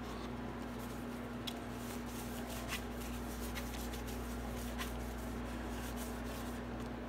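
A gloved hand rubbing motor oil around the inside of a cast-iron engine cylinder bore: soft, uneven rubbing with a few light ticks, over a steady low hum.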